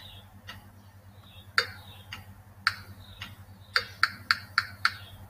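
Wooden percussion clicks from a tik-tok block playing a simple rhythm pattern: two single strokes about a second apart, then a quick run of five strokes near the end. Fainter clicks fall in between.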